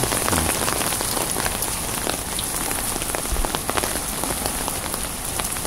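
Heavy rain falling steadily, with many individual drops striking hard close by.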